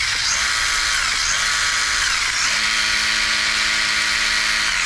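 Brushless motor and drivetrain of a JMRC S910 1/16-scale RC truck running at full throttle with its wheels spinning freely in the air: a loud, steady, high-pitched whine, with a few brief dips in pitch.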